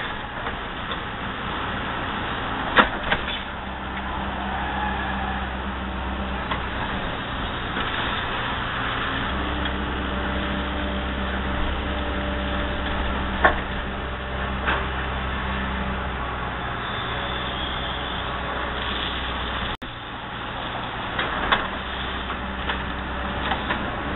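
Excavator's diesel engine running under hydraulic load, its note shifting a couple of times as the load changes, with a few sharp clanks.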